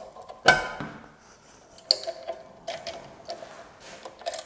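Small metal clicks and clinks as a steel support bracket and its screw are fitted by hand to a belt grinder's frame. A sharp, ringing metallic clink about half a second in is the loudest, with lighter clicks near two seconds and near the end.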